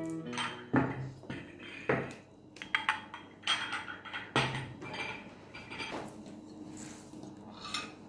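Crockery and cutlery being picked up and set down as a table is cleared: ceramic bowls and a plate with a fork and knife on it knock and clink against each other and the counter in an irregular run of short knocks.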